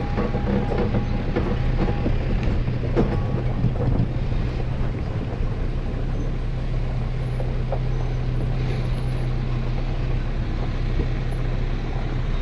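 Off-road 4x4 driving along a rough dirt track: a steady engine drone, with a few knocks and rattles in the first four seconds.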